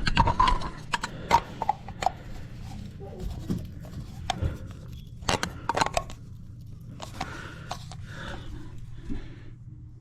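Scattered sharp clicks and knocks with some scraping, from toilet parts and tools being handled, over a steady low hum.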